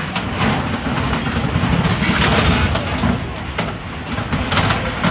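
Fast floodwater rushing past wrecked steel barges jammed against a bridge pier: a loud, heavy rumble of churning water, with scattered knocks now and then.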